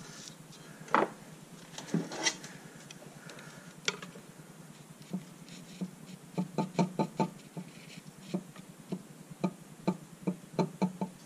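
Irregular sharp taps and knocks of tools working a stuck lower intake manifold loose on a 3.8 V6. They come as scattered single knocks, then a quick run of about five a second around six seconds in, then more spaced taps near the end.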